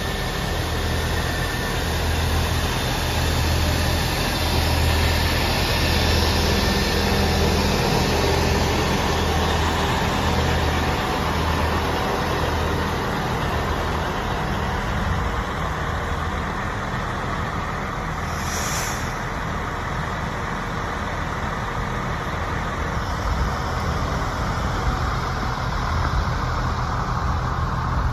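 A fire engine's diesel engine running steadily, its low rumble swelling and fading every second or so, with a brief hiss about two-thirds through.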